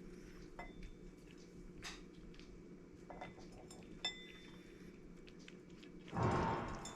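Several light clinks with a brief metallic ring, then a louder rustling scuffle about six seconds in. A faint steady hum runs underneath.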